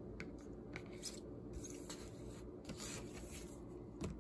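Faint rustling and scraping of a paper CD inner sleeve being handled and unfolded, with scattered soft ticks and a sharper tap near the end.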